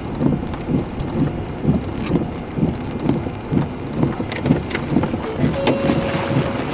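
Rain and wind in a thunderstorm, with uneven low rumbling gusts. A thin steady tone sounds for about a second near the end.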